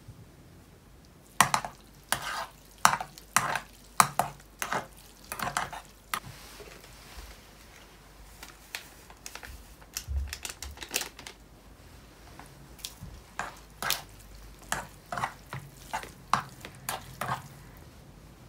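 A utensil stirring food in a cooking pot, knocking and scraping against the pot in quick, irregular strokes that come in two main runs.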